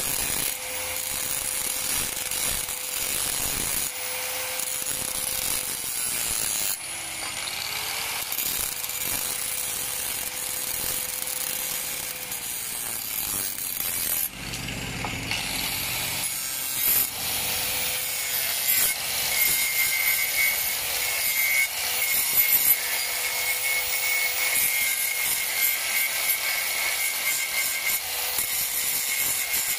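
Electric angle grinder with an abrasive cut-off disc cutting into a steel hoe blade: a steady motor whine over a harsh rasping hiss, the whine sagging briefly under load about seven seconds in. Later the grinder works the blade's edge with a flap disc, a harsher, grittier grind.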